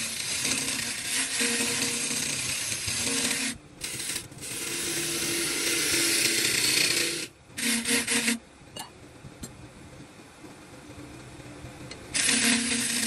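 A tool working wood: a scraping hiss with a steady humming tone underneath. It breaks off briefly twice partway through, drops low for a few seconds, and starts up loud again near the end.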